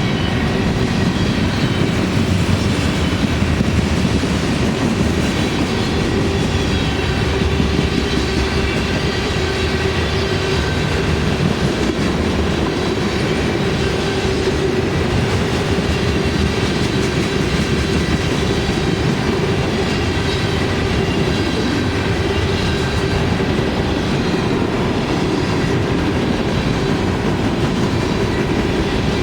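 Train cars rolling past on the rails: a continuous loud rumble of wheels on track with clickety-clack, and a steady ringing tone over it.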